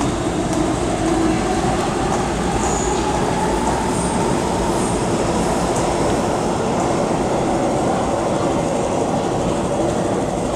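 MTR Kwun Tong Line M-Train (Metro-Cammell electric multiple unit) running slowly through an underground station without stopping. A steady rolling rumble of wheels on rail comes through the platform screen doors, with a few brief high squeaks.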